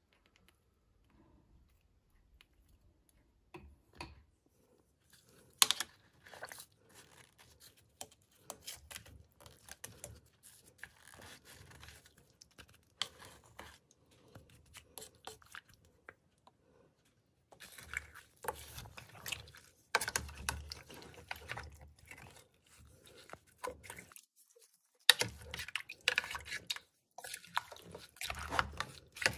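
A spoon and then a spatula stirring raw chicken pieces with spices and coconut milk in a stainless steel pressure-cooker pot: irregular wet squelching and scraping, with a few sharp clinks of metal on the pot. It starts a few seconds in.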